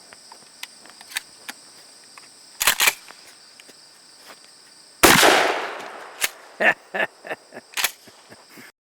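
A single shot from a Remington 870 Express Magnum 12-gauge pump shotgun about five seconds in, its echo fading over about a second. Several sharp mechanical clacks follow. Crickets chirp steadily underneath.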